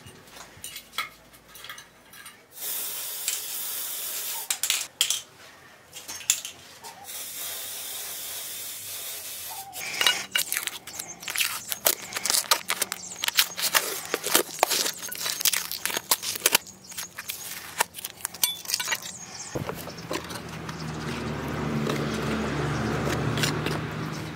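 Aerosol spray paint hissing in two long bursts, then a run of sharp clicks and knocks from parts being handled. About twenty seconds in, a steady low mechanical hum starts abruptly and grows louder.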